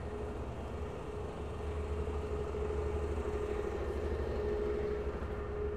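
Street traffic heard from a moving bicycle: a double-decker bus running close alongside, with a steady low rumble and a steady hum that grow louder about a second and a half in.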